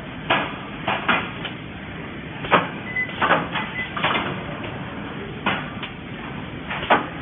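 Sheet-metal gantry-type multi-point automatic welding machine working. About a dozen short, sharp noisy bursts come at irregular intervals over a steady mechanical background noise.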